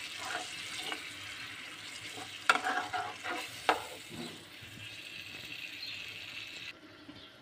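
Garlic and hot pepper sauce sizzling in a metal pan while a metal spoon stirs it, scraping and clinking against the pan, with two sharp clinks around the middle. The sizzle cuts off near the end.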